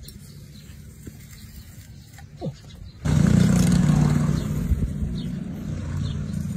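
A motor vehicle engine running steadily with a low hum. It comes in suddenly about three seconds in and stays loud, over a quieter outdoor background before it.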